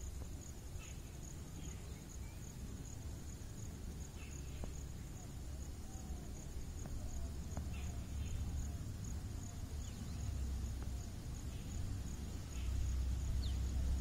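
An insect chirping steadily in a fast, even, high-pitched pulse, over a low rumble, with a few faint short bird chirps.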